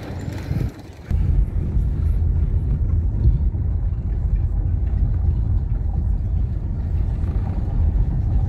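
Steady low road and engine rumble inside a moving car's cabin, starting about a second in after a brief drop in sound; just before it, street traffic passes.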